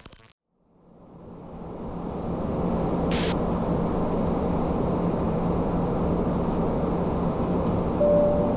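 Steady flight-deck noise of a Boeing 737-800 in cruise: a rush of airflow with a low hum, fading in over the first two seconds. There is a brief hiss about three seconds in and a short tone near the end.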